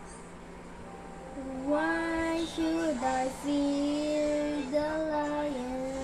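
A child singing a slow song melody without accompaniment, in long held notes, starting about a second and a half in.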